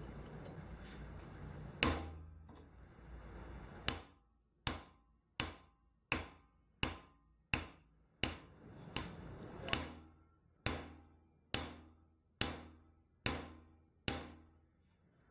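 Hammer blows. One strike comes about two seconds in, then about fourteen steady strikes follow, a little under a second apart, each ringing briefly.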